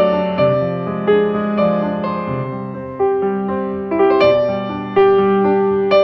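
Background piano music: slow, gentle notes and chords, each struck and left to fade before the next.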